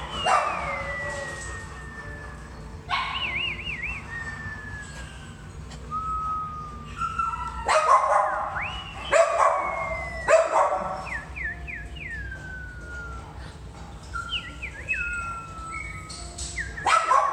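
Dogs in a kennel howling and whining: long falling howls and wavering cries, with sharp barks or yelps about eight to ten seconds in and again near the end.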